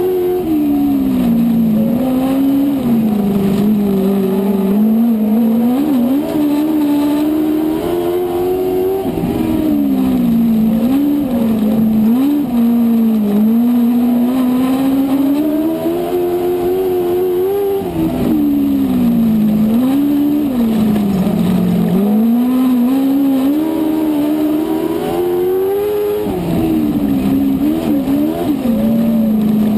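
On-board sound of a dwarf car's four-cylinder motorcycle engine at race speed on a dirt oval, the note climbing down each straight and dropping back into each turn, a cycle about every eight to nine seconds, with other cars' engines close by.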